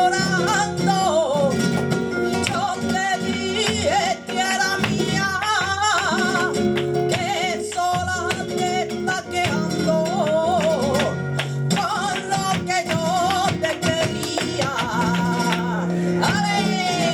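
Live flamenco fandango: a woman singing cante in wavering phrases over flamenco guitar, with frequent sharp percussive strikes.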